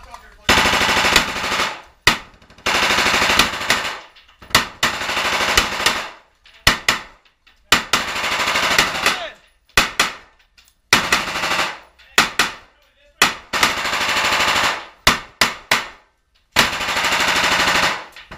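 Repeated bursts of automatic rifle fire, each about half a second to a second and a half long with short gaps between, fired from inside a small wooden building.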